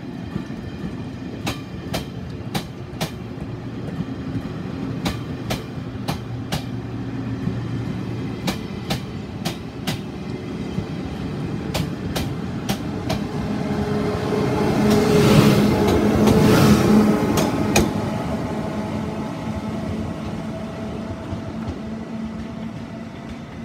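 Electric passenger train pulling out and rolling past, its wheels clicking over rail joints in a steady rhythm over a low rumble. The sound swells to a loud rush about two-thirds of the way through as the rear end passes, then fades away with a steady hum.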